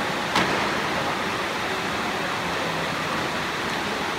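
Steady murmur and hubbub of a crowd in a large, echoing sports hall, with one sharp smack about half a second in.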